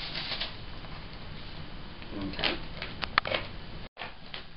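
Plastic two-liter bottle being shaken, the sugar and yeast mixture inside pattering and rustling against the plastic, with a few sharp knocks and clicks about two to three seconds in. The sound cuts out for a moment near the end.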